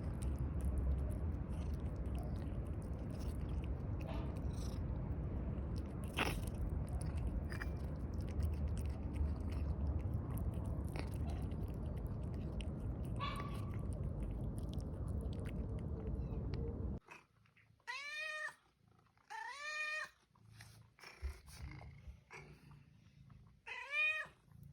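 A steady low rumbling noise with a few clicks that stops abruptly, followed by a domestic cat meowing three times, each call rising then falling in pitch.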